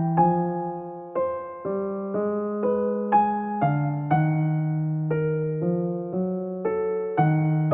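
Slow, gentle piano music: soft notes and chords struck about twice a second, each ringing on as it fades.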